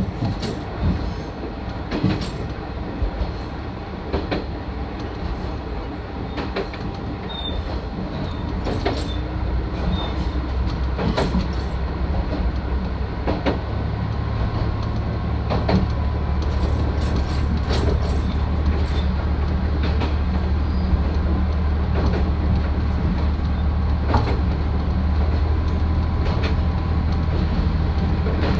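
Isumi 350 diesel railcar running along jointed track, its wheels clacking over rail joints about every two seconds. About halfway through, the low drone of the diesel engine swells and the running noise grows louder.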